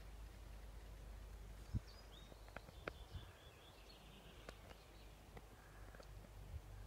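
Quiet outdoor ambience: a low wind rumble on the microphone, a few soft clicks, and faint high chirping between about two and four seconds in.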